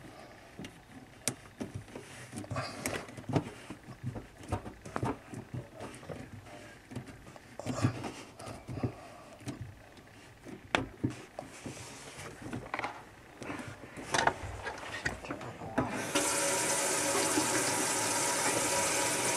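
Hands tightening plastic slip nuts on a PVC sink drain trap: scattered clicks and scrapes. About sixteen seconds in, the kitchen faucet is turned on and water runs steadily into the sink and down the drain, testing the retightened drain joint for leaks.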